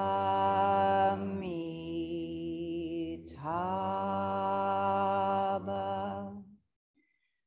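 Voices chanting a Buddhist mantra in unison on long held notes. The pitch steps down and back up, with a brief break about three seconds in. The phrase ends before a pause for breath near the end.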